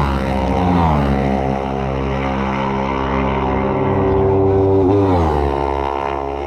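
Road-racing motorcycle engine running hard at high revs, its pitch dropping sharply three times: at the start, about a second in, and about five seconds in.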